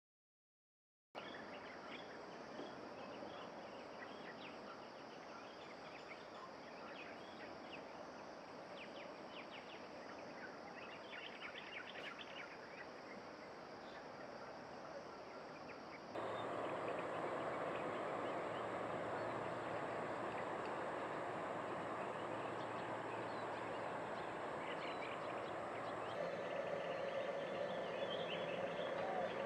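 Outdoor ambience of insects and birds: a steady high insect drone with scattered bird chirps. It starts after about a second of silence, gets louder about 16 seconds in, and changes again near 26 seconds, when steady tones come in.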